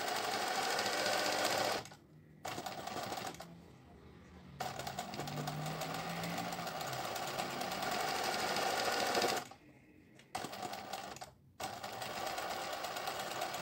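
Singer 20U semi-industrial zigzag sewing machine stitching a felt appliqué in runs, stopping briefly four times: about two seconds in, around four seconds in, near ten seconds and again near eleven and a half seconds.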